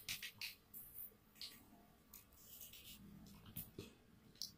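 Near silence broken by a few faint, short clicks and scratchy rustles, spaced irregularly.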